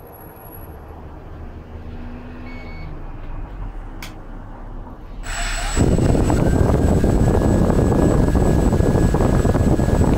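Walkera X350 Pro quadcopter's four motors and propellers starting up about halfway through, then running steadily on the ground. The rush of the propellers carries a thin, steady, high whine.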